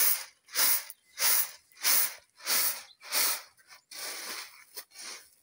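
Shelled maize kernels being winnowed in a woven basket: each toss and catch gives a rattling shush of grain landing, about every two-thirds of a second, six times, then softer shuffling near the end. The grain is being cleaned of husk and dirt before milling.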